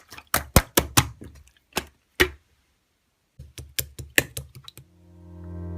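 Quick, irregular sharp clicks and taps, like typing on a keyboard, in two runs split by about a second of silence. Near the end, music with held synthesizer chords fades in.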